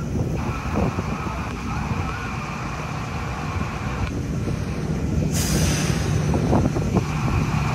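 Train at a station platform: a steady low running hum with a high whine over it, and a burst of air hissing about five seconds in.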